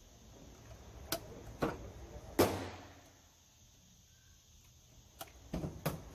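5.56 mm rifle cartridges being pressed one at a time into a clear plastic rifle magazine, giving a series of sharp clicks. One louder sharp crack with a short echoing tail about two and a half seconds in.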